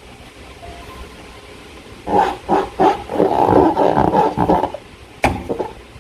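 Raspy squeaks and squelches from a slime-filled transparent rubber balloon being handled, in a run of bursts starting about two seconds in, then one sharp click near the end.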